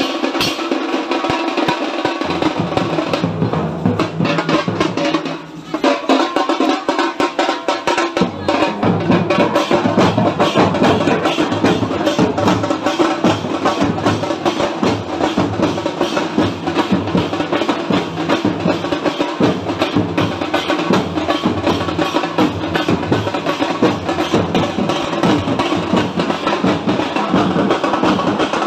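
Fast, dense drumming in a driving rhythm, with a deeper beat joining about eight seconds in.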